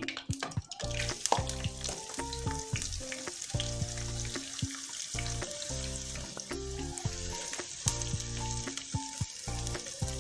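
Sliced onions sizzling in hot oil in a non-stick kadai. The frying sets in about half a second in, as the onions are tipped in, and goes on steadily.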